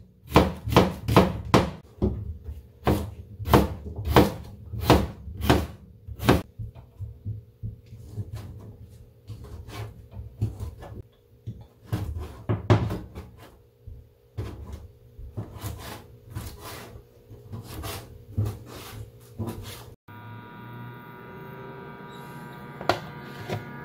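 Kitchen knife chopping onion and then squid on a plastic cutting board: a run of sharp knocks, about two a second at first, then sparser and more uneven. About 20 seconds in, the knocks give way to a steady hum with faint tones.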